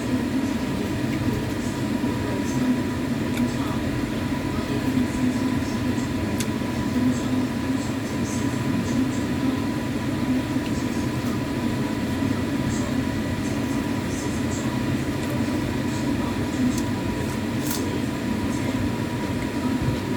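Steady low rumbling background noise with a faint steady high tone, and scattered faint small clicks that fit chewing and eating.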